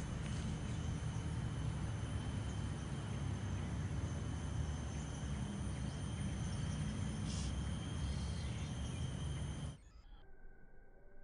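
Outdoor ambience of insects shrilling in steady high tones over a low rumble. Near the end it cuts off suddenly to a much quieter, thinner sound with faint steady tones.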